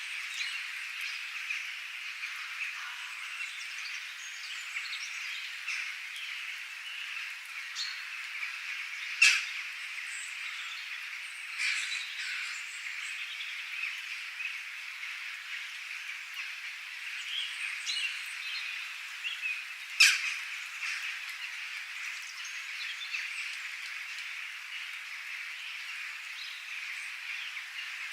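Nature ambience of a steady chorus of calling frogs with scattered bird chirps over it. Three sharp, loud calls stand out, about nine, twelve and twenty seconds in.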